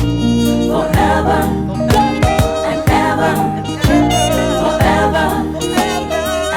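Gospel worship music: sustained chords over a steady beat, with a drum stroke about once a second and a voice singing runs without clear words.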